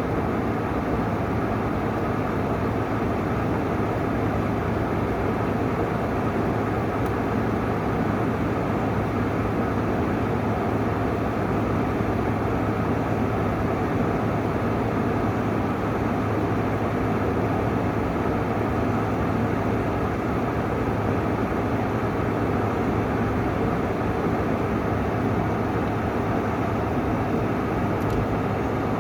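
GE window air conditioner running steadily: the fan's even rush of air over a steady low hum.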